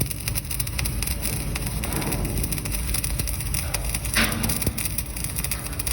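Electric arc welding on a vertical (3G) joint: the arc crackles steadily, a dense run of fine clicks, with a brief louder flare about four seconds in.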